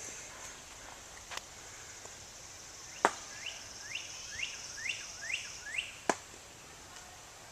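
Steady high insect hiss, broken by three sharp clicks, the loudest about three seconds in, and a run of six short rising chirps about two a second just after it.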